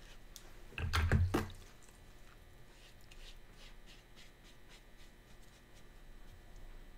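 Quiet handling sounds of watercolour painting: a brush working on paper and faint small ticks, with one dull knock about a second in.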